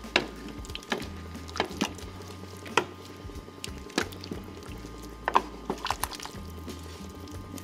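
Irregular sharp knocks and clicks of kitchen work, roughly one or two a second, over a low steady hum.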